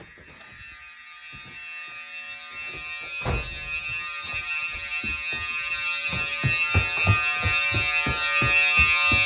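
Fire alarm horns sounding a continuous, steady buzzing tone and growing steadily louder: a CPG PowerTone ASLP set to the 'attention' tone and a Simplex 4050-60 horn. Low thuds run underneath, about three a second in the second half.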